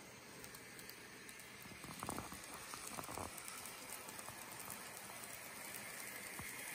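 Model train of Atlas NJ Transit bi-level passenger cars rolling along sectional track: faint, irregular clicking of the small metal wheels over the rail joints over a light hiss, growing slowly louder toward the end.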